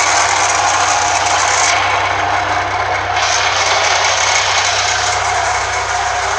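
Chevrolet Chevette's 1.6 HC engine running steadily with a strange noise from its alternator, which also runs very hot while still charging normally: the owner is sure it must be a damaged alternator bearing.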